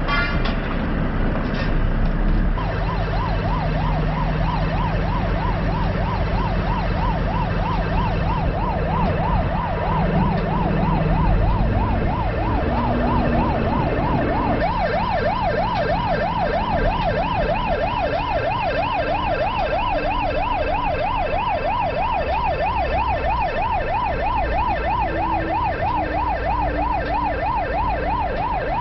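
Electronic siren in a fast yelp, its pitch sweeping up and down about three times a second, starting about two and a half seconds in. Under it is a steady low vehicle engine drone.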